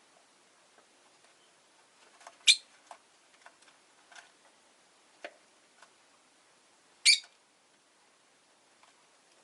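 Rosy-faced lovebird giving two short, sharp, high chirps, one about two and a half seconds in and one about seven seconds in, with fainter ticks and soft chirps between them.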